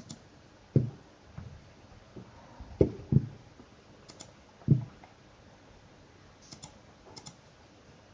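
Irregular clicking of a computer mouse and keyboard: four louder low taps in the first five seconds and a few light, sharp double clicks later on.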